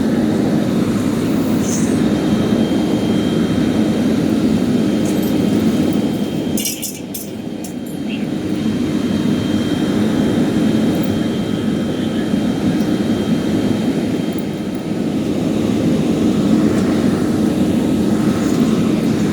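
Steady drone of a fire engine running its pump to supply the hoses. The level dips briefly about seven seconds in, with a few sharp clinks.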